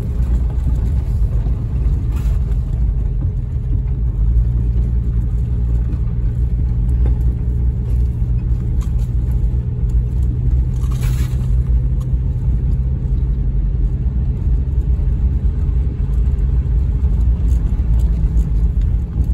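Vehicle engine and tyres rumbling steadily inside the cabin while driving a dirt trail, with a brief hiss about eleven seconds in.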